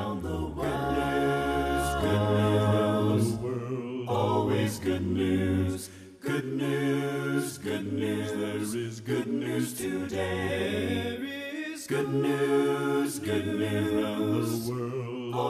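Unaccompanied choir singing a cappella, in sung phrases with short breaks about six and twelve seconds in.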